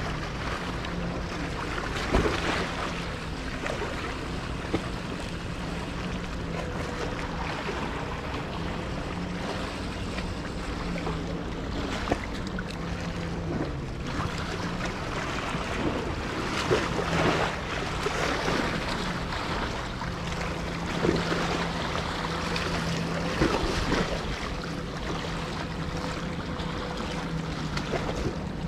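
Sea water washing against the rocks of a breakwater, with the steady low hum of a boat engine out on the water. A few brief knocks stand out along the way.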